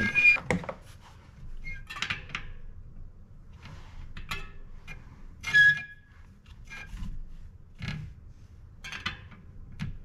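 Bicycle wheel being trued: a spoke wrench turning spoke nipples on the wheel in a truing stand, giving scattered short clicks, ticks and scrapes. The loudest is a brief sharp ring about five and a half seconds in.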